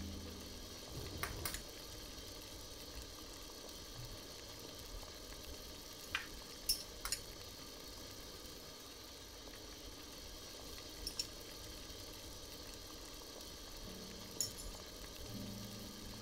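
Seafood stew bubbling at a rolling boil in a ceramic pot, with a few short, sharp clinks of chopsticks and a spoon against a small ceramic bowl.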